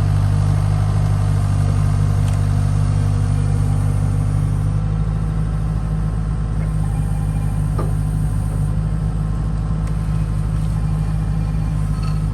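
Excavator's diesel engine running steadily, easing off slightly about five seconds in.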